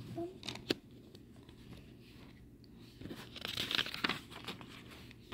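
Plastic fashion doll and toy dragon being handled: two light clicks in the first second, then a rustling, crinkling noise from about three seconds in.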